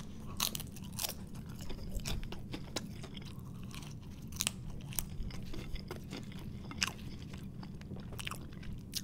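Close-miked chewing of crispy homemade russet potato fries: irregular crunches and wet mouth clicks, with fingers being licked clean of ketchup.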